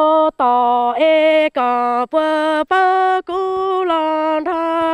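Hmong kwv txhiaj, sung poetry without accompaniment: a single voice holding long, level notes syllable by syllable, with short breaks between them and a quick dip in pitch at the start.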